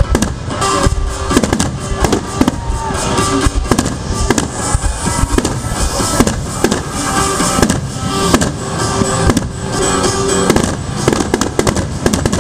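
Aerial firework shells bursting in quick succession, a run of sharp bangs about one or two a second, with music playing underneath.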